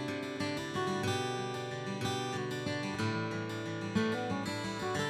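Background music: a plucked acoustic guitar playing a picked melody with chords.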